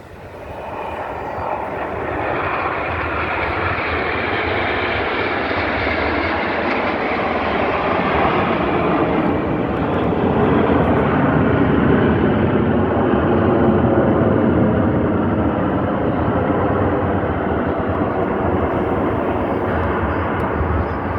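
Aircraft engine noise from a display plane flying past, building over the first two seconds, loudest about halfway through and easing slightly near the end.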